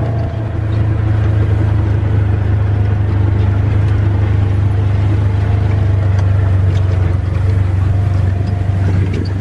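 Motor vehicle engine running steadily with a low drone.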